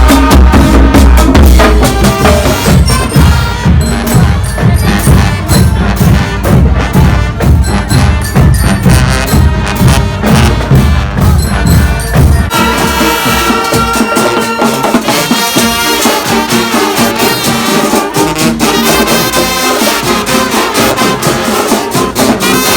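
Music with a strong beat and deep bass; about halfway through the bass drops out, leaving lighter, higher-pitched instruments.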